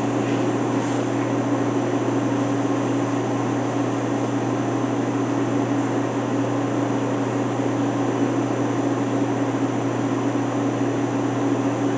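Haas VF-E vertical machining center running under power: a steady machine hum with an even tone through it, unchanging throughout.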